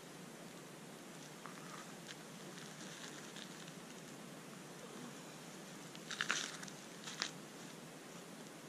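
Dry twigs and kindling crunching and snapping as they are handled and laid onto a small, newly lit campfire. A few faint clicks early on, then a louder cluster of crunches about six seconds in and one more snap a second later, over a faint steady hiss.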